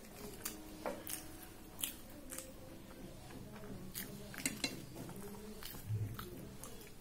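Close-up eating sounds: fingers tearing a puri and scooping chickpea ragda against a steel plate, with chewing and scattered sharp mouth clicks. There is a soft low thump about six seconds in.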